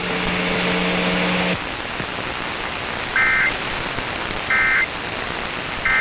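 Emergency Alert System end-of-message data bursts over a radio broadcast: three short, identical warbling digital tones about a second and a half apart, signalling the end of the alert. They sit over steady radio hiss, and a steady hum cuts off about a second and a half in.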